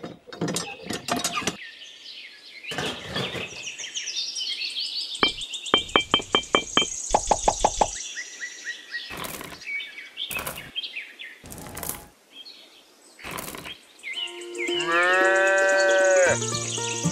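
Background music with bird chirps and scattered clicks and taps, including a quick run of clicks midway. Near the end a cow moos once, long and arching.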